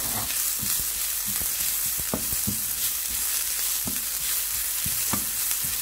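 Chopped onions, garlic, green chillies and curry leaves sizzling in hot oil in a non-stick pan, with a spatula stirring through them in repeated short scrapes against the pan. The onions are being sautéed until they soften.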